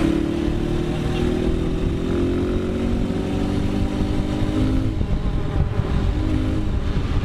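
Dirt bike engine running on the move with heavy low wind rumble on the microphone. The engine note eases slowly downward for about five seconds, then picks up again briefly about six seconds in.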